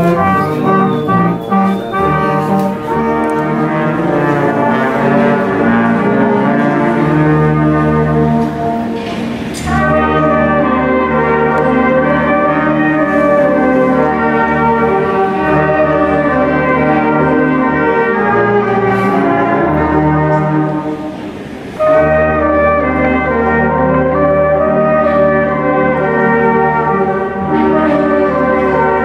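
A small brass group of trumpets and other brass instruments playing a tune in a church. The playing is continuous, with two brief breaks between phrases, about a third and about two-thirds of the way in.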